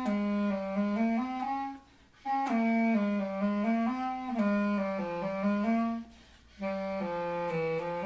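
Background music: a slow solo melody on a single wind instrument, played in phrases broken by two short pauses.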